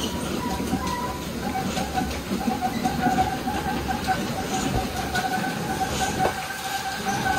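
Belanger car wash wraparound brushes spinning and scrubbing the rear of a vehicle: a steady churning with a high machine whine that drops slightly in pitch about a second in.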